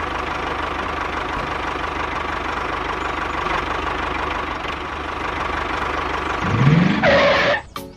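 Small engine of a homemade mini tractor running steadily, then revving up with a rising pitch about six and a half seconds in, and cutting off abruptly just before the end.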